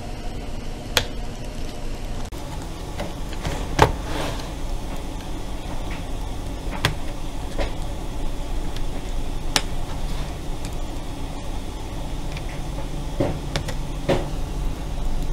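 Plastic palm rest of an HP Stream laptop being pried away from the bottom case with a thin blade worked along the seam, giving sharp clicks a few seconds apart as the edge snaps loose. A steady background hum runs underneath.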